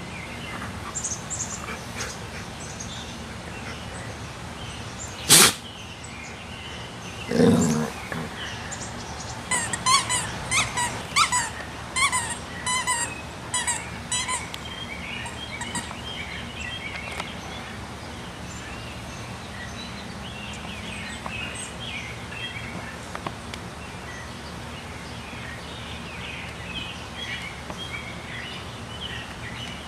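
Golden retriever sneezing and snorting: one sharp, loud sneeze about five seconds in, a second sneeze a couple of seconds later, then a quick run of short snorts lasting about five seconds. Birds chirp in the background later on.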